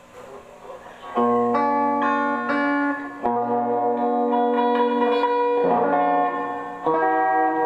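Guitar played fingerstyle: a slow original piece of plucked notes and ringing chords that starts about a second in, after a quiet opening.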